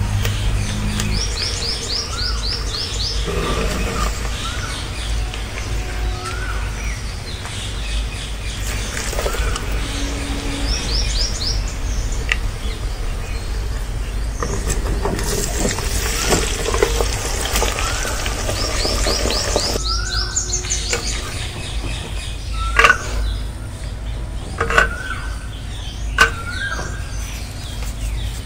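Small birds calling: repeated short rising chirps about every two seconds and several rapid trills of quick falling notes, over a steady low rumble. A few sharp knocks come in the last seconds.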